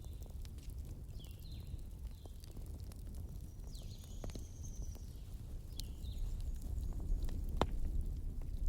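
Wood fire crackling, with scattered sharp pops over a steady low rumble, the loudest pop near the end. Short high chirps of birds come and go over it.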